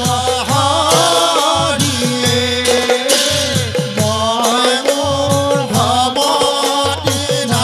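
Assamese Naam-Prasanga devotional singing: a group of men chanting together, with small brass hand cymbals clashing steadily and barrel drums beating low strokes that slide down in pitch.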